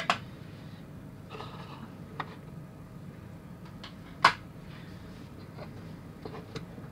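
Small motorized display turntable running with a steady low hum. A few light plastic clicks come from the model display bases being handled, the sharpest about four seconds in.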